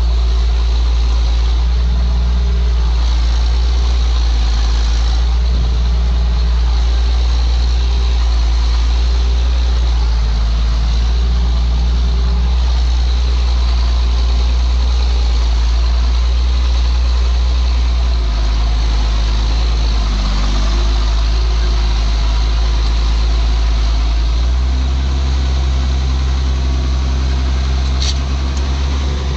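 Ford TW tractor's diesel engine working hard under load while pulling a plough, lugging where the plough bites in. The engine note drops and changes near the end, with a brief click just before it ends.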